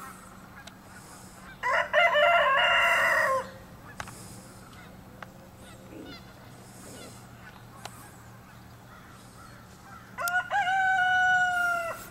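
Rooster crowing twice, each crow just under two seconds long, about eight seconds apart.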